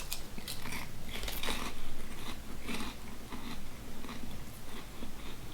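A person chewing Lay's Layers three cheese potato chips, with irregular crisp crunches one after another.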